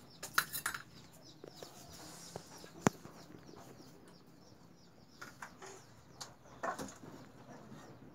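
Scattered clinks and knocks of a metal spoon against plates and a pan, the sharpest about three seconds in.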